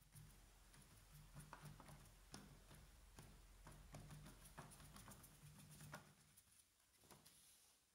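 Faint, irregular soft taps of a paint-loaded sponge being dabbed onto paper, over near silence; the taps thin out near the end.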